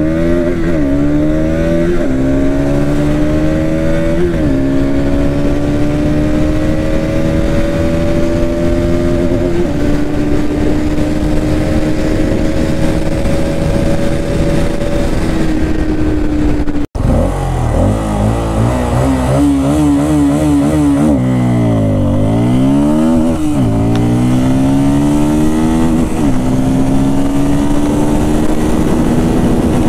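Bajaj Pulsar NS200's single-cylinder engine at full throttle, accelerating hard through the gears, its pitch climbing and dropping back at each upshift. About halfway through, after an abrupt cut, the Bajaj Pulsar N250's single-cylinder engine revs, launches and climbs through several upshifts in the same way.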